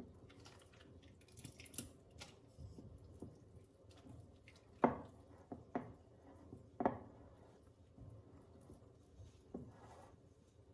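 Quiet kitchen handling sounds: soft wet squishing and light taps, with three sharp knocks of a utensil against a bowl or dish about five, six and seven seconds in.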